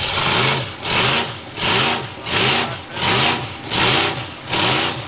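An SUV's engine is revved in short, even bursts, about eight in a row, each one rising and falling in pitch. It is stuck in a deep mud rut, and its wheels spin in the mud on each burst.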